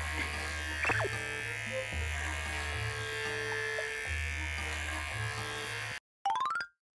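Electric pet-grooming clippers buzzing steadily as they trim a Maltese's coat. About six seconds in the buzz cuts off abruptly, and a short rising sweep of tones follows.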